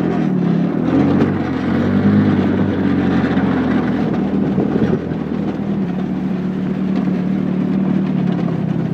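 Small side-by-side buggy's engine running as it drives over a leaf-covered dirt track, its pitch wavering with the throttle over the first few seconds and then holding steady, with the tyres and ride making a constant rumble underneath.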